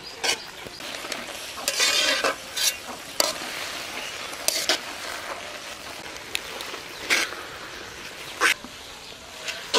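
Jute leaves frying with a steady sizzle in an aluminium karahi, stirred with a metal spatula that scrapes and knocks against the pan at irregular intervals, with one longer scrape about two seconds in.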